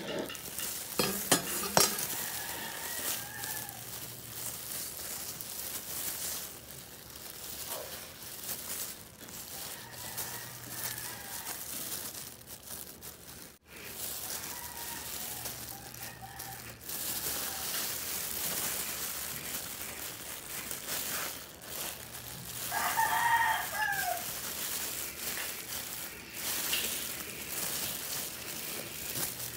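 A rooster crowing in the background, once briefly near the start and again more loudly about two-thirds of the way through. A few sharp taps, knife on a wooden cutting board, come near the start.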